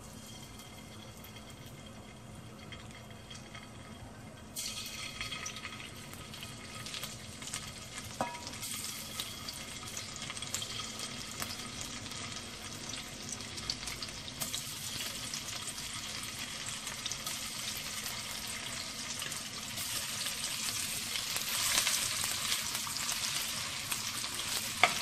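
Cornflour-coated chicken pieces sizzling in hot oil in a wok. The sizzle is faint at first, jumps up suddenly about four seconds in as the pieces go into the oil, and grows louder as more are added.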